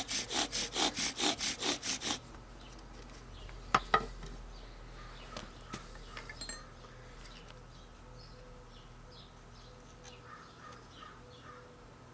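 Bow drill: a wooden spindle spun back and forth by the bow against the hearth board, with quick even strokes of about five a second that stop about two seconds in. A little later come two sharp knocks close together, then faint background.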